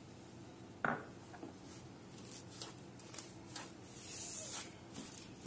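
Wooden spatula in a kadhai: one sharp knock against the pan about a second in, then repeated short scraping strokes as it stirs a dry mix of khoya and sugar.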